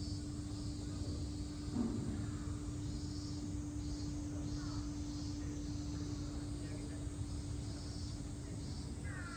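Outdoor ambience: a steady low hum over a low rumble, with a faint high buzzing that pulses about once a second. A brief short sound stands out about two seconds in.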